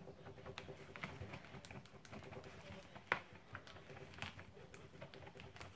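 Silicone spatula stirring thick, melted white chocolate ganache in a plastic bowl: soft scrapes and light taps against the bowl's side, with one sharper knock about three seconds in. A faint steady hum sits underneath.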